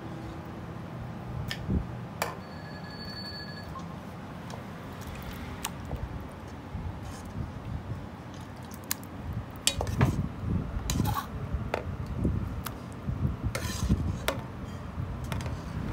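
A metal ladle and ceramic bowls clinking and knocking against a steel pot as rice congee is served out. The clinks are scattered at first and become more frequent, mixed with heavier knocks, in the second half.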